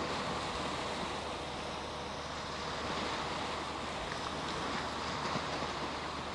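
Steady rush of wind and small Elbe river waves washing onto a sand beach, even and unbroken with no distinct events.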